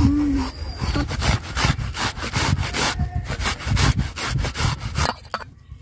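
Peeled raw green banana being grated on a hand-held stainless-steel flat grater into a steel bowl: quick, repeated scraping strokes that die away shortly before the end.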